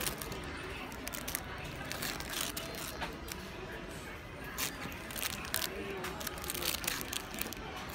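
Clear plastic bags around squishy toys crinkling irregularly as they are picked up and handled, over a background of voices.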